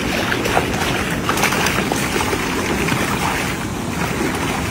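Water splashing and churning steadily as many fish thrash in a cast net being hauled up through shallow water.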